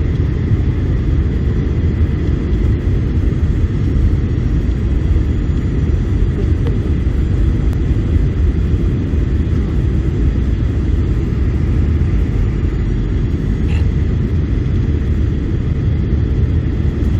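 Steady cabin noise of a Boeing 737-800 airliner: an even low rumble from the engines and airflow, with a faint steady high tone over it.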